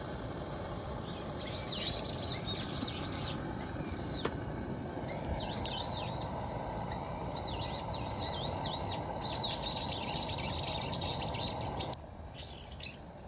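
Small birds chirping and calling over and over in short, arching high notes, above a steady rushing background. The calls and the background drop off suddenly near the end.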